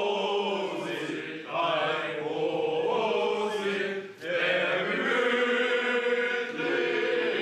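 Voices singing a slow song with little or no accompaniment, in long held phrases broken by short pauses about one and a half seconds and four seconds in.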